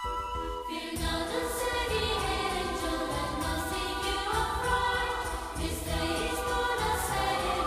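Music: a melody line gives way about a second in to choir-like singing over a steady beat.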